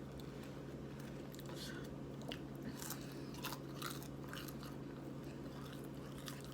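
A person chewing food close to the microphone, with soft, irregular crunches and mouth clicks every half second or so.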